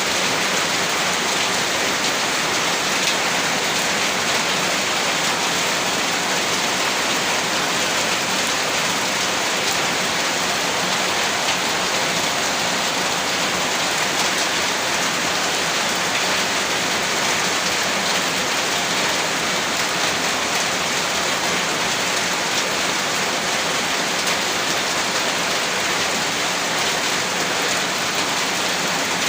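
Heavy rain falling steadily, a dense even patter of drops on a surface.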